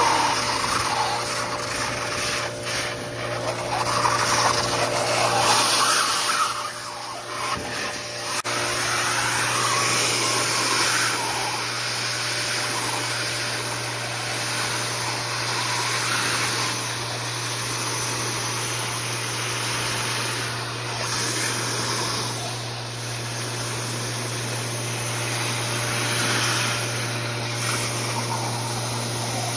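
Industrial central vacuum drawing shot-blast media up through a 3-inch hose and aluminium wand: a steady rush of air with a constant low hum. It is uneven for the first several seconds, then settles to an even, steady suction.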